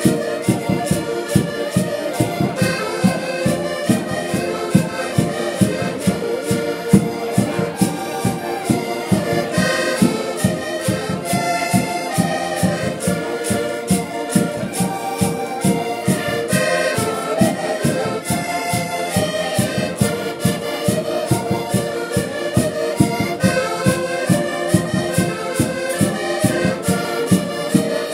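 Portuguese folk music played live by a group of diatonic button accordions (concertinas), with a bass drum keeping a steady beat under the held melody notes.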